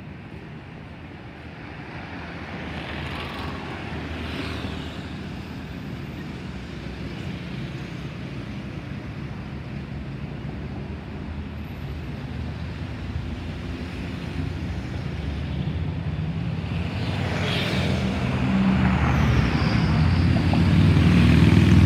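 Boeing 737-800's CFM56-7B jet engines climbing out after takeoff and getting steadily louder as the aircraft comes overhead. A low rumble builds to its loudest near the end, with a faint falling whistle shortly before.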